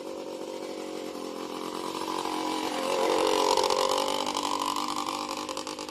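Yamaha Blaster ATV's single-cylinder two-stroke engine running as the quad is ridden, growing louder about two seconds in and fading again toward the end.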